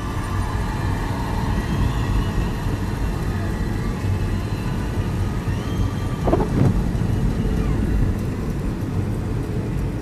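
Car interior road noise while driving on a wet, snowy road: steady low engine and tyre rumble with a hiss of tyres on wet pavement, heard from inside the cabin.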